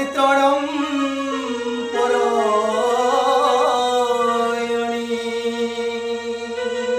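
A man sings a drawn-out devotional melody, his voice sliding between notes. Under him, a harmonium and a Casio electronic keyboard hold sustained notes.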